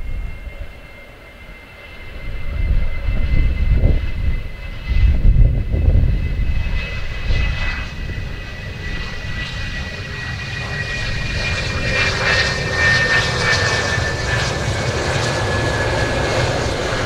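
Twin General Electric J79 turbojets of an RF-4 Phantom running at low power on the landing roll-out. A steady high whine drifts slowly lower over a deep rumble, growing louder as the jet comes nearer.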